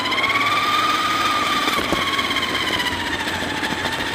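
Electric motor and gears of the Bug Crusher RC car whining at speed. The whine rises in pitch as the car speeds up, then holds and eases slightly lower, with a small knock about two seconds in.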